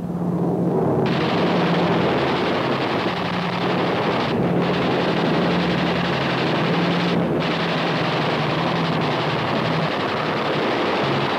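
Long bursts of machine-gun fire over the steady drone of an aircraft engine, a fighter's guns on a strafing pass. The fire starts about a second in and breaks off briefly twice, around four and a half and seven seconds.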